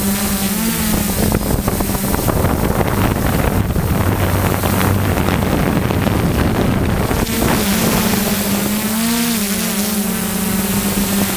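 Electric motors and APC 10x4.5 propellers of a DJI F550 hexacopter buzzing in flight, heard from the onboard camera. The hum wavers in pitch as the motors change speed, about a second in and again near the end. In the middle, wind rushing over the microphone covers it.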